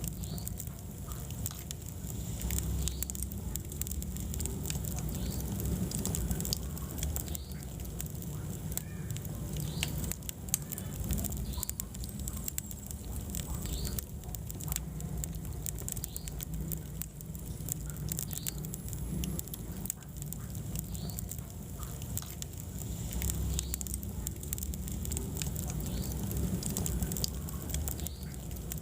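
Wood fire burning in a fireplace: a steady low rumble of flames with frequent small crackles and pops scattered throughout.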